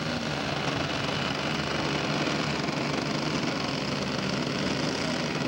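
Radio-controlled scale model airplane engines running in flight, a steady drone.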